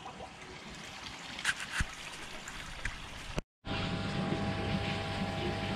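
Faint bubbling and trickling of water from an air-stone in a koi pond. About three and a half seconds in there is a brief dead break, and then a steady electric hum of the filter house's pond pumps and blue linear air pumps.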